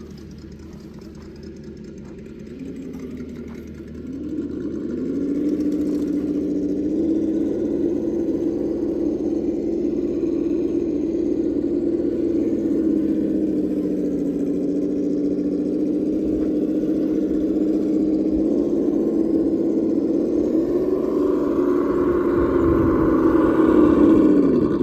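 Traxxas TRX-4 Defender RC crawler's electric motor and gear drivetrain whining. The pitch climbs about four seconds in as it speeds up, holds steady while driving, then falls away and stops right at the end.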